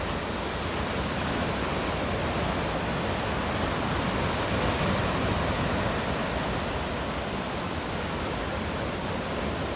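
Steady roar of rough surf on the beach, the sea stirred up and churned muddy by a typhoon.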